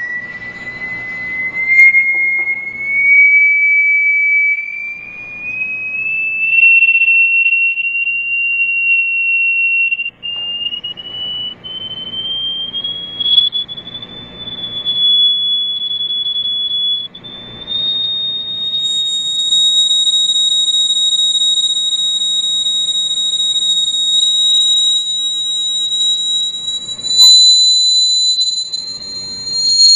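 A single high, pure electronic test tone, the kind used to vibrate sand into cymatic patterns, climbing slowly in small steps to a higher pitch. It gains a thinner, brighter edge about two-thirds of the way through. Faint low buzzing comes and goes underneath.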